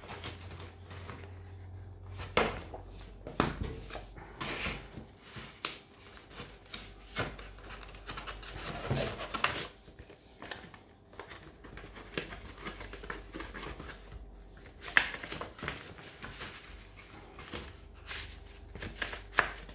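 Paper and card items (comic, trading cards, bookmark) being handled and pushed into their packaging: irregular rustling with scattered taps and clicks.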